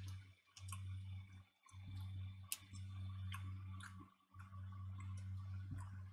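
Sparse faint clicks and crinkles from a plastic bag of Drumstick Squashies sweets being handled, over a low steady hum that drops out briefly a few times.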